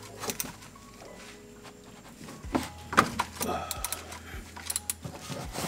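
Wrench working loose the oil pan drain plug on a BMW E30: a few sharp metal clicks and clinks, the sharpest about three seconds in.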